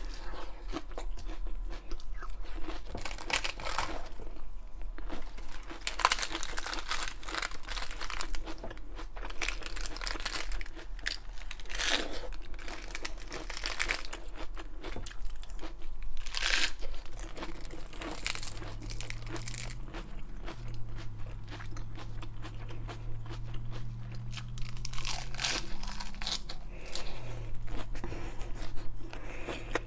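Crisp raw iceberg lettuce being bitten and chewed close to the microphone in a run of sharp, wet crunches. Between bites, leaves are torn and crinkled off the head by hand.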